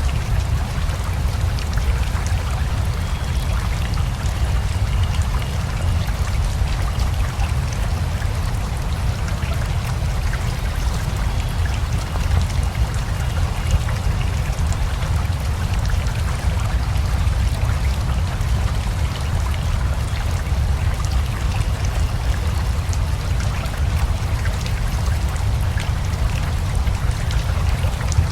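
Steady rain mixed with a flowing river: a constant wash of running water with a strong low rumble and scattered drop ticks on top, unchanging throughout.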